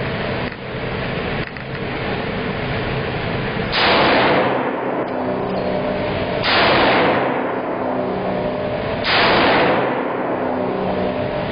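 Three rifle shots about two and a half seconds apart from a Norinco M14S (M305) SOCOM semi-automatic rifle in .308 Winchester, each followed by about a second of reverberation in the range, over a steady ventilation hum.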